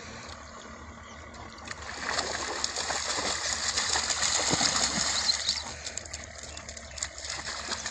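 Two dogs running and splashing through shallow water. The splashing swells about two seconds in and eases off after about five and a half seconds.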